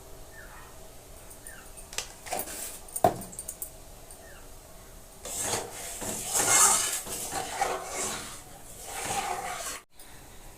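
A person sneezing over and over in a run of loud, noisy bursts about halfway through, which stops abruptly near the end. A few sharp clicks come before it.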